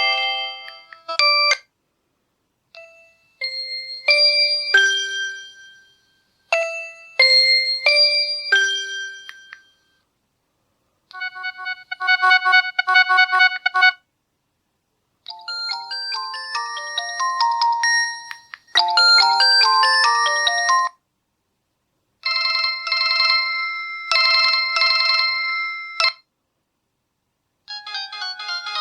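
LG A140 mobile phone ringtones played one after another: a string of short electronic melodies, each a few seconds long, with a second or so of silence between them.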